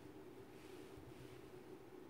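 Near silence: room tone with a steady faint hum.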